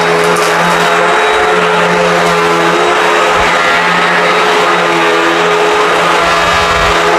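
Hoover WindTunnel High Performance upright vacuum running steadily at full power, a loud motor drone with a hiss of airflow as its brush roll works a rug.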